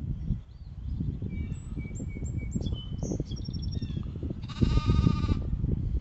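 Small birds chirping and whistling, then about four and a half seconds in a single loud, wavering, bleat-like animal call lasting under a second, over a steady low rumble.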